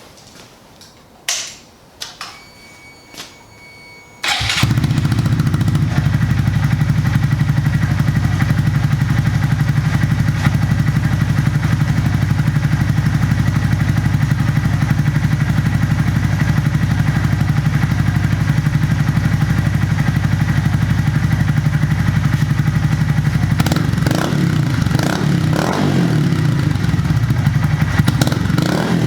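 A few clicks and a thump, then about four seconds in a Honda Monkey's single-cylinder engine starts through a Yoshimura RS-3 exhaust fitted with its dB killer and spark arrester. It idles steadily, and near the end it is revved a few times.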